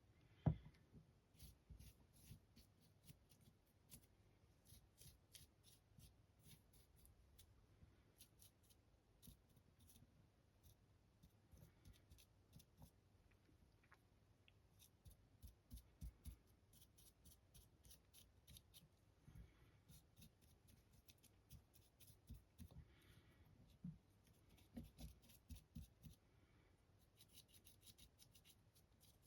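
Near silence with faint small ticks and scratches, the sounds of handling a paintbrush and a painted plastic model.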